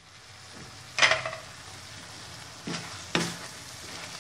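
Wooden spatula stirring fresh moringa leaves into tuna flakes frying in a metal wok: a steady sizzle, with sharp knocks of the spatula against the pan, the loudest about a second in and two more near the end.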